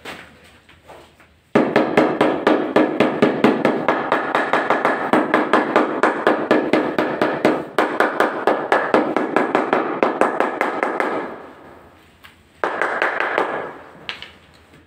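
White rubber mallet tapping a large ceramic floor tile in quick succession, about five or six blows a second, bedding it into the tile adhesive. The tapping goes on for about ten seconds, stops, then comes again in a short second round near the end.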